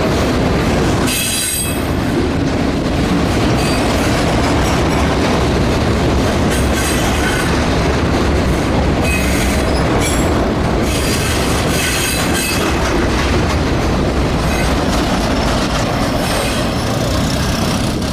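Freight train of enclosed autorack cars rolling past close by: a steady, loud rumble of steel wheels on rail, with high-pitched wheel squeals about a second in and again in the middle.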